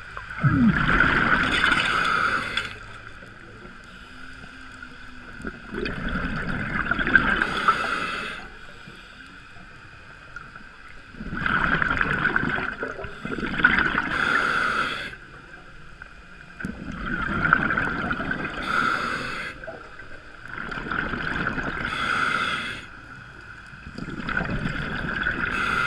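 Scuba diver breathing through a regulator underwater: about five bursts of exhaled bubbles, each two to three seconds long and roughly five seconds apart, with quieter stretches between.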